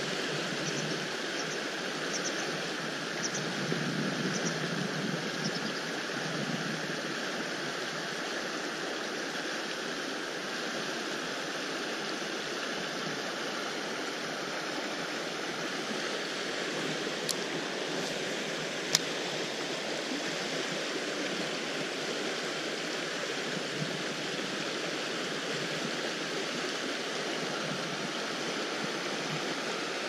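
Mountain stream rushing over rocks, a steady, even rush of water, with two sharp clicks a little past halfway.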